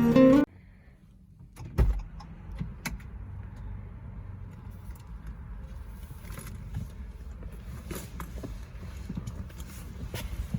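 A vehicle's steady low rumble, with a single sharp thump about two seconds in and small clicks and rattles scattered through it.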